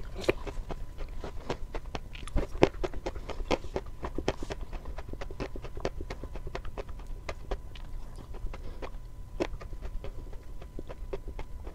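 Close-miked chewing of something crunchy: an even run of crisp crunches, several a second.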